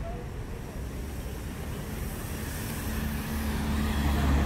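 Street traffic: a motor vehicle's engine drawing nearer, its low rumble growing steadily louder, with a steady hum coming in about halfway.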